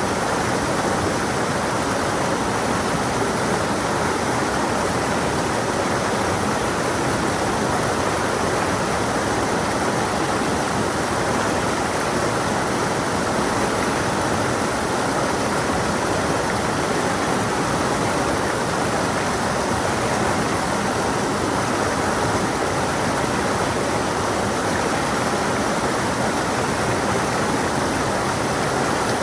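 A stream's water flowing and splashing over rocks in a steady, unbroken rush.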